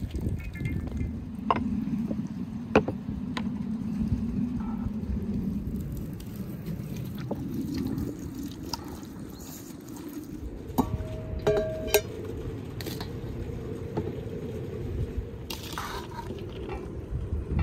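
Water dripping and trickling from a stainless-steel colander of washed rice into an enamel basin, with sharp drip clicks. Later come a short ringing clink and a brief scrape of a metal spoon against the steel colander.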